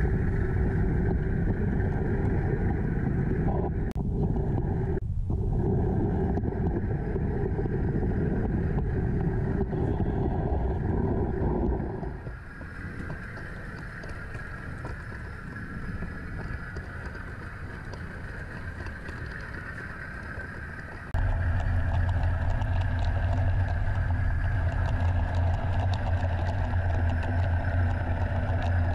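Running noise of a model train: a steady mechanical rumble of cars rolling on the track, mixed with the Bowser Baldwin AS-616 model's sound-effect diesel engine. The rumble drops quieter about twelve seconds in, and returns louder with a steady low hum about twenty-one seconds in.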